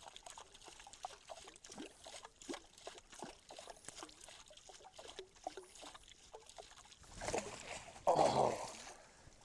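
Small water plinks and gurgles, then a loud splash about eight seconds in as a muskie swirls at the lure at the boatside.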